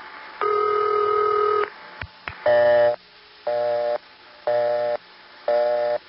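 Telephone ring tone heard over a phone line, made by a central office's mechanical tone plant: one burst of about a second, then two clicks, then a busy signal pulsing about once a second.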